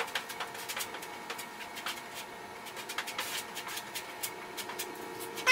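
Plastic body-filler spreader scraping and tapping over filler on a steel car hood: scattered light scrapes and clicks over a faint steady hum.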